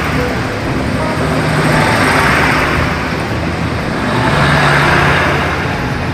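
Taiwan Railway diesel multiple-unit train passing close by, its underfloor diesel engines humming and its wheels running on the rails. The roar swells each time another car goes past, about every two seconds.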